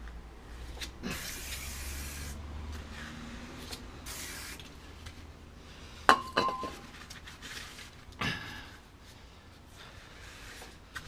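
Kitchen towel being rubbed over a new brake disc in short hissing strokes, with a sharp metal clink and brief ring about six seconds in.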